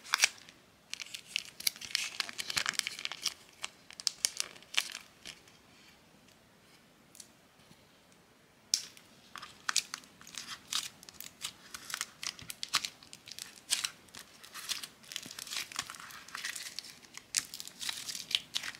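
A quick snip of scissors through a plastic pouch, then sticky crackling and tearing as soft butter slime is squeezed, pulled and kneaded by hand to work in the activator. The slime is quiet for a few seconds in the middle.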